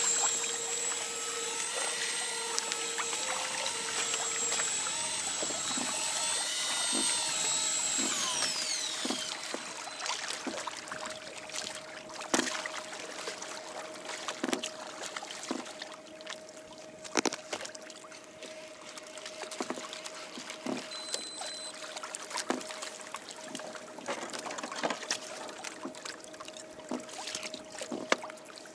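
Daiwa Seaborg electric fishing reel whining as it winds in line with a hooked fish, its pitch sliding down as it stops about eight seconds in. A lower steady hum carries on afterwards, with water splashing and lapping against the kayak.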